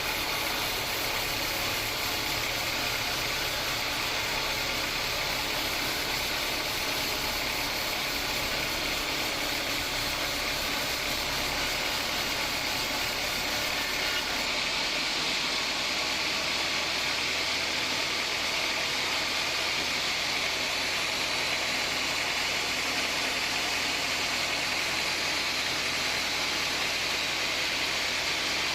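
Homemade bandsaw sawmill running steadily, its blade sawing through a hard acacia log; the low hum and the highest hiss change about halfway through.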